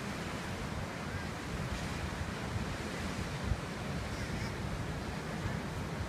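Small sea waves washing and breaking over a rocky shore, a steady rushing hiss, with wind buffeting the microphone in an uneven low rumble.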